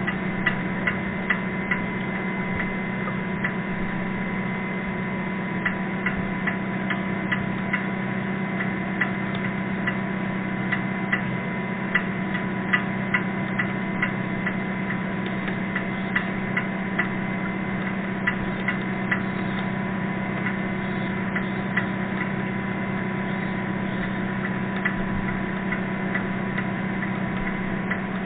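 Underwater noise from a dredging boat: a steady low drone, with irregular sharp ticks about one or two a second.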